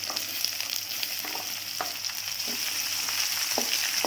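Freshly added chopped onion and green chillies sizzling in hot oil in a pan, a steady hiss with scattered crackles and pops, as the onion starts to sauté.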